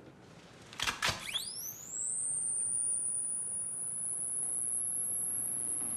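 Sound effect of a laser sight switching on: a few clicks about a second in, then an electronic tone that glides sharply upward and settles into a steady high-pitched whine.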